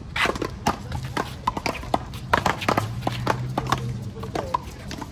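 One-wall paddleball rally: a rubber ball is struck with paddles and slaps off the concrete wall. It makes a quick, irregular series of sharp knocks, several a second, mixed with players' shoes on the court.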